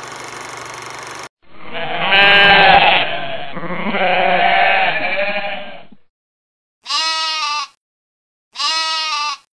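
A steady hiss that cuts off after about a second, then animal bleating: one long wavering bleat lasting about four and a half seconds, followed by two short bleats near the end.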